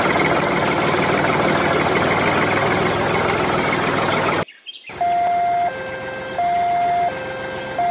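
An engine runs steadily, then cuts off abruptly about four and a half seconds in. After a short gap, a two-tone siren alternates between a high and a low note, each held for about two-thirds of a second.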